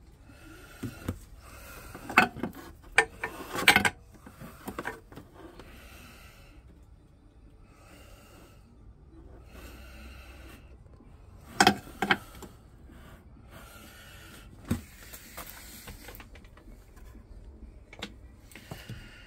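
A person breathing close to the microphone, with a few sharp clicks and knocks. They come in a cluster about two to four seconds in, a pair near the middle and single ones later.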